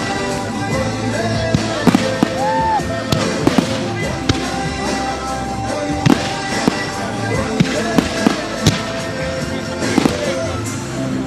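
Fireworks going off in sharp bangs and crackles every second or so, over music playing throughout.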